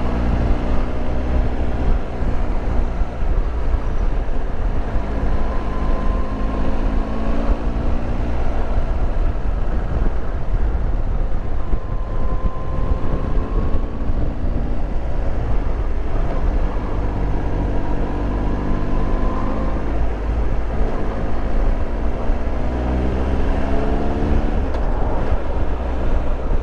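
Triumph Tiger Explorer 1200's three-cylinder engine heard from on board while riding. The engine note rises several times as the bike pulls through the gears, over a steady low rumble.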